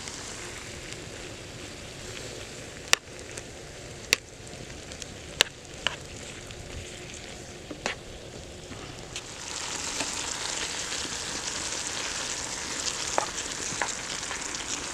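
Steak cubes and onions sizzling in a hot skillet as they are stirred, with a few sharp clicks in the first half. The sizzle swells and grows louder about two-thirds of the way through.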